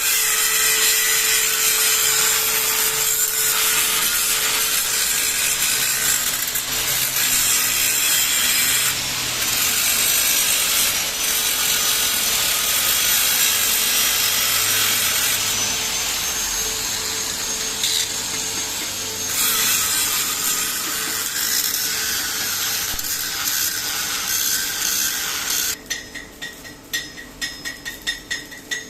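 Shielded metal arc (stick) welding: the arc crackles loudly and steadily, then stops about 26 seconds in, leaving only scattered taps and clicks.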